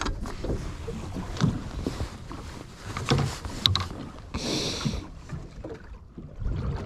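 Irregular knocks and clatter aboard a small fishing boat over low wind and water noise, with a short hiss about four and a half seconds in.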